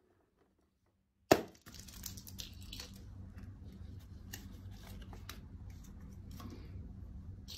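A rubber balloon bursts with a single sharp bang a little over a second in. Several seconds of rustling and crackling follow as the torn rubber is handled and its contents are emptied into the slime.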